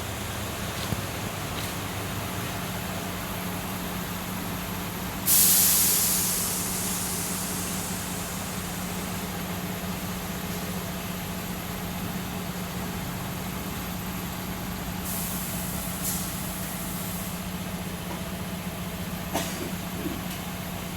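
Automatic picture-frame cutting machine running with a steady hum. About five seconds in comes a sudden loud hiss that fades over a couple of seconds, and shorter, fainter hisses follow near the end.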